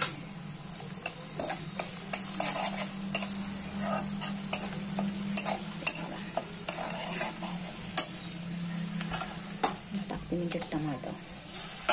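Steel spatula stirring and scraping an onion and green-chilli masala frying in oil in a metal kadhai, with frequent sharp clicks of the spatula against the pan over a steady sizzle.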